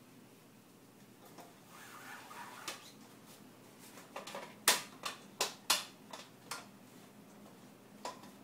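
Sharp clicks and knocks of a folding camping bed being handled: a soft rustle, then a quick run of clicks about halfway through, the first the loudest, and one more near the end.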